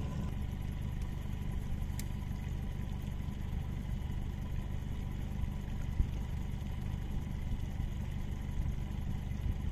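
Boat motor running steadily at low speed, a low even hum with a faint high whine over it. There is a sharp click about two seconds in and a short knock about six seconds in.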